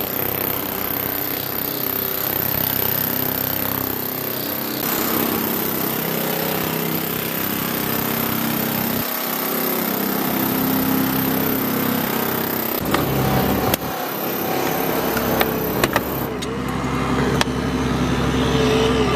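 Small petrol engine running steadily, the kind that powers hydraulic rescue tools during vehicle extrication, with a few sharp metal clicks and knocks in the last few seconds as the tools work on the car doors.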